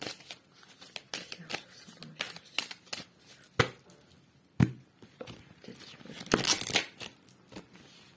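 Oracle cards being shuffled and handled: a string of short card snaps and clicks, two sharper ones near the middle, and a longer rustling burst of shuffling about six and a half seconds in.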